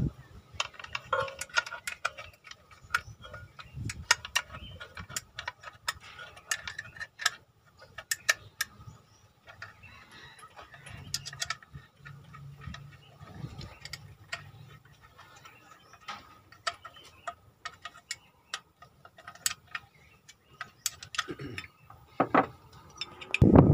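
Irregular light metallic clicks and taps from a spanner being worked on the bolts along the rocker cover of a Hino F20C diesel engine.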